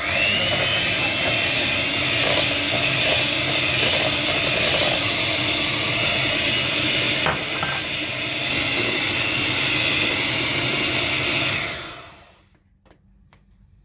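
Electric mixer running steadily, beating egg, sugar and flour batter for a sponge roll into a thick, mousse-like mix; its whine rises as it starts and it winds down and stops near the end.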